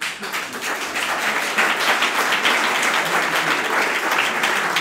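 Audience applauding, starting all at once and holding at a steady level.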